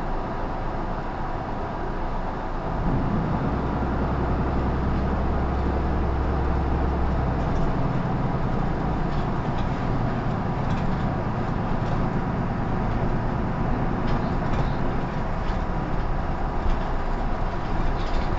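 Isuzu PKG-LR234N2 city bus's inline-six diesel engine and running noise. About three seconds in the engine pulls harder and a deep drone builds, then eases after about seven seconds into steady running with a few light rattles.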